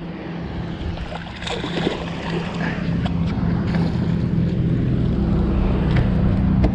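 A steady low hum under a rumble of wind on the microphone. The rumble grows louder over the last few seconds.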